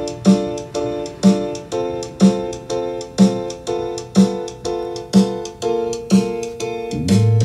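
Instrumental music played back through hi-fi loudspeakers from a TEAC A-3300 reel-to-reel tape deck monitoring off tape, with repeated chords and a low beat about once a second. A steady low bass line comes in near the end.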